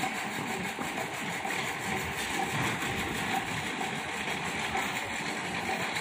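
A machine running steadily, a continuous mechanical noise with no clear change.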